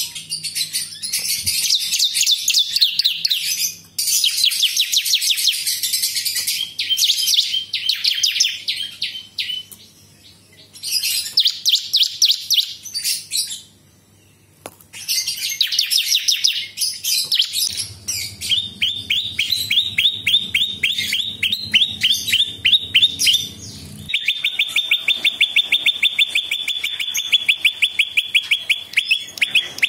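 A caged prinia (prenjak lumut) singing in bursts of fast, chattering trills of sharp high notes, with brief pauses around the middle. In the second half it goes over to a long, even, rapid trill on one pitch.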